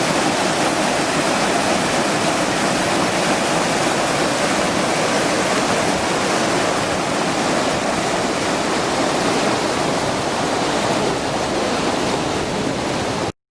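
Steady rushing of a mountain river or waterfall, a dense continuous noise that cuts off abruptly near the end.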